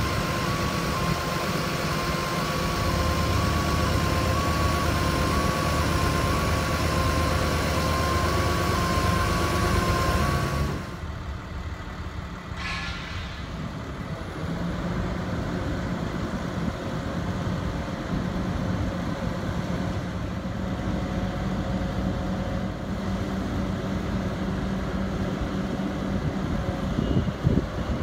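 The truck's 6.7-litre diesel engine runs steadily while an alarm beeps slowly and evenly, the beeping stopping abruptly about eleven seconds in. The engine then runs on with a steady low hum as the Terex Hi-Ranger boom is raised on its hydraulics.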